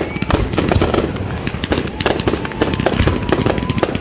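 Fireworks going off in quick succession: a dense, continuous run of sharp bangs and crackles. A thin, steady whistle sounds beneath them through the second half.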